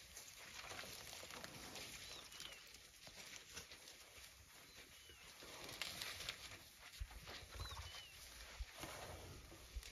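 Faint ambience beside a herd of African elephants feeding and stepping through grass and mud: soft rustling and crackling, with a bird's short high chirps, often in pairs, every couple of seconds. A few low bumps come about seven to eight seconds in.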